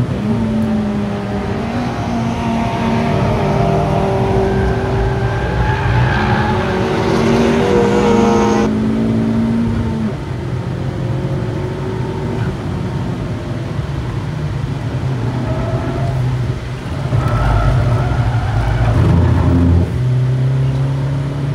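Honda Civic Type R engine pulling hard on a race track. Its note climbs in pitch for about eight seconds and then breaks off suddenly. It runs steadier for a while, then climbs again near the end.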